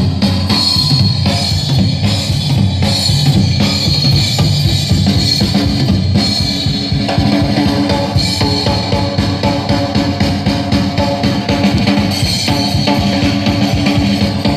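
Playback of a live jazz-swing band recording, with the drum kit (bass drum and snare) prominent in a steady beat.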